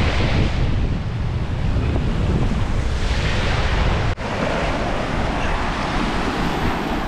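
Strong wind buffeting the microphone: a steady, loud rumbling rush, broken by a momentary dropout about four seconds in.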